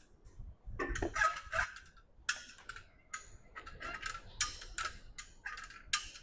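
Chain hoist clicking and its chain rattling as it lowers a heavy tractor housing, in irregular sharp clicks of about three a second.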